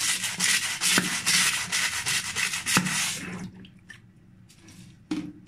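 Scrub brush scrubbing a wet floor corner in rapid back-and-forth strokes, stopping about three and a half seconds in.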